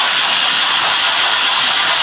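Several Märklin model trains running on metal track: a steady whirring, rolling hiss of wheels and motors.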